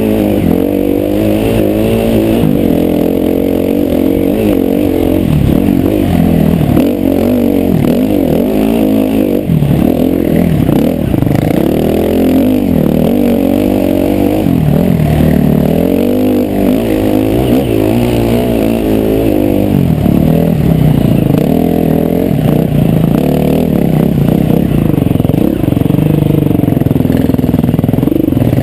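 Dirt bike engine being ridden over rough trail, revving up and down continually as the throttle is worked, its pitch rising and falling every second or two.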